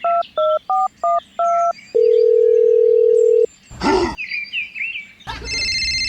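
Telephone touch-tone dialing: about five quick two-tone keypad beeps, then a single steady tone held for about a second and a half. A short burst follows near the fourth second, and a held electronic chord starts near the end, with faint bird chirps behind.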